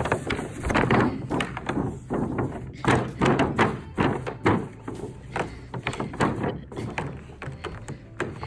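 Hollow plastic thunks and knocks of an empty kiddie pool as a German shepherd pushes, flips and drags it over the grass, many irregular knocks.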